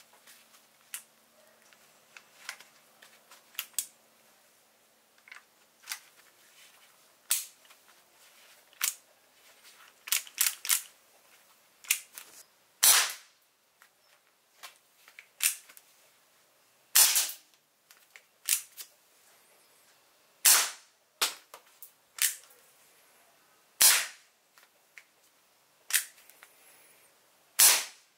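Airsoft single-action revolver: a run of small mechanical clicks as its cylinder is handled, then five sharp shots about three and a half seconds apart, with a smaller click of the hammer being cocked between shots.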